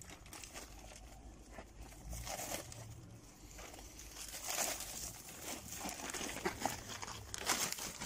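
Black plastic garbage bag crinkling and rustling as hands untie it and pull it open, louder in the second half.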